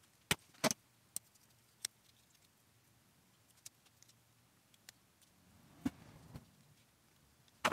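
A few sharp clicks from a hand wire stripper-crimper being worked on high-temperature wire while ring terminals are fitted, followed by scattered small ticks. About six seconds in comes a short soft rustle from a small packet of connectors being handled.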